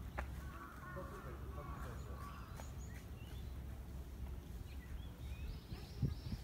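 Outdoor background: faint bird chirps and distant voices over a steady low rumble, with one dull thump about six seconds in.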